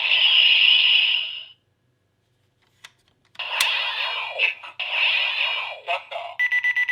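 Electronic sound effects from the Blay Buckle toy transformation belt's small speaker. A sound cuts off about a second and a half in, and a click follows after a short silence. Then come sweeping, gliding effects, and near the end a fast pulsing beep on a steady tone.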